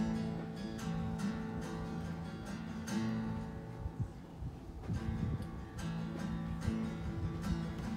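Acoustic guitar strummed in chords, with a short let-up about halfway through.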